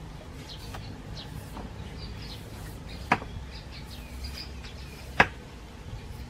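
Birds chirping, and two sharp clicks about two seconds apart from a knife paring the skin off a green papaya.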